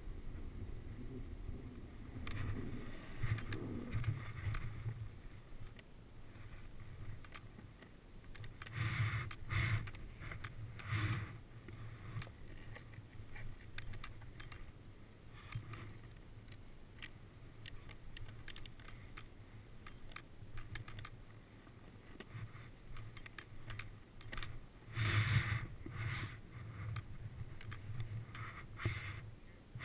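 A snowboard scraping over snow and ski clothing rustling in several short, irregular bursts, picked up close by a helmet-mounted camera. The loudest burst comes near the end.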